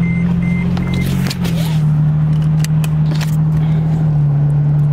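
Toyota pickup truck's engine running with a steady low hum, heard from inside the cab. A dashboard warning chime beeps about two and a half times a second and stops about a second in, followed by a few sharp clicks.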